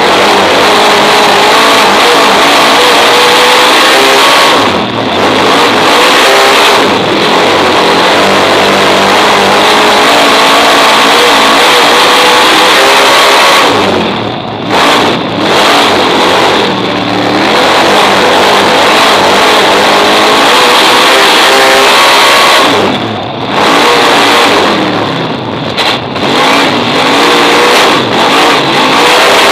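Superstock speedway car's V8 engine heard from inside the cockpit, running hard at high revs with the throttle eased off briefly several times before picking up again.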